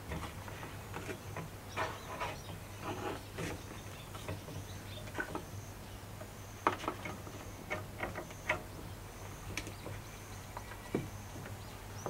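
Scattered light clicks, taps and knocks of wood and rope being handled as a wooden bow stave is set and bent in a wooden jig, its rope hooked to a carabiner and wrapped around dowel pegs. The sharper knocks come past the middle.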